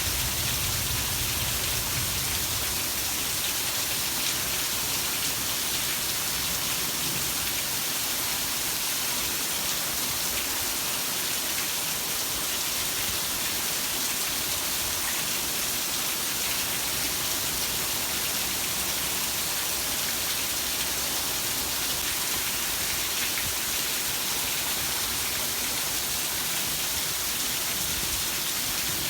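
Heavy rain falling steadily, a dense even hiss with a faint low rumble in the first few seconds.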